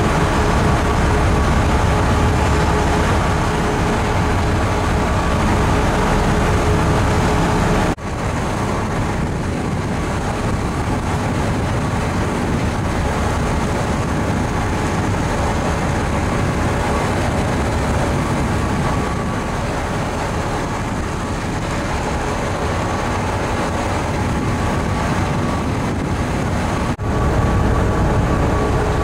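Steady drone of a ferry's engines under way, with a low rumble of wind and rushing water. It drops a little about eight seconds in and returns near the end.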